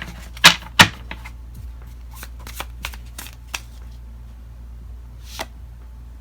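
Tarot cards being shuffled and handled. There are two sharp card snaps in the first second, then lighter scattered flicks and ticks.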